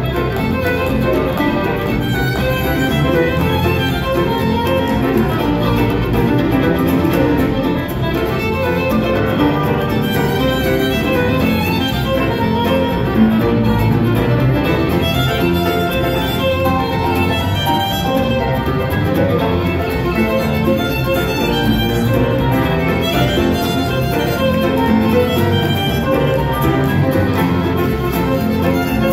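Live acoustic band playing a tune: a fiddle carries the lead, backed by acoustic guitar, mandolin, upright bass and piano.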